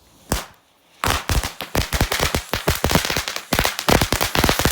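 Crackling firework fountain going off: one sharp crack, then from about a second in a dense, rapid run of loud crackling pops.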